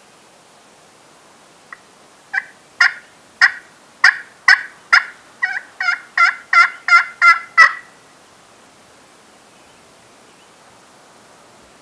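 Wild turkey calling: a run of about fourteen short, sharp notes over some six seconds, spaced out at first and coming quicker toward the end.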